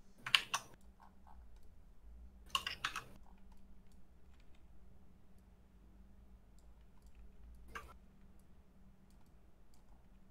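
Computer keyboard keys and mouse buttons clicking: three short runs of quick keystrokes, the first the loudest, with scattered single clicks between, over a faint steady hum.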